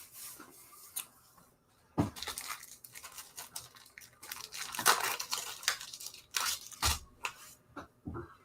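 Rustling and crinkling of trading cards and their packaging being handled by hand, in irregular bursts with sharp clicks.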